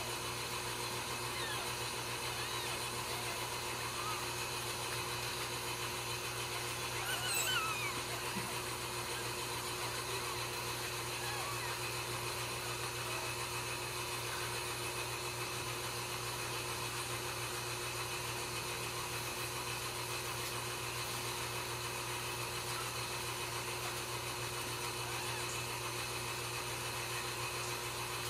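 A steady hum throughout, with a newborn Ragdoll kitten's brief high, gliding squeak of a mew about seven seconds in, as the kittens nurse.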